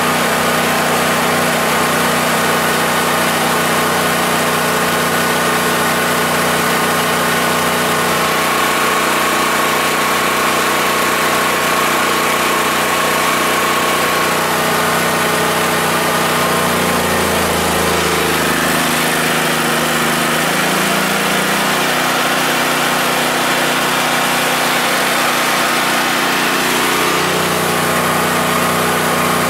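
The 13 hp engine of a Yamakoyo SH7000DXE generator runs on natural gas under heavy load from two hair dryers on full, with the dryers blowing over it. A little past halfway the engine's pitch sags and wavers for several seconds, then settles back near the end.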